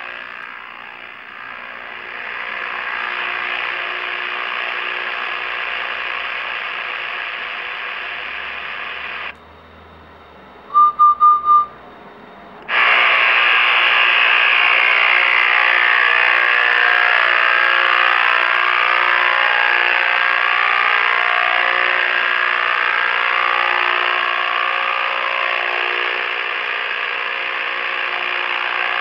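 Realistic Navaho TRC-431 CB radio's speaker buzzing harshly and steadily. The owner suspects aging capacitors could be the cause of this fault, which appears after the mic is released when the set has been on a long time. The buzz cuts out for about three seconds past the middle, while four short beeps sound, then comes back louder.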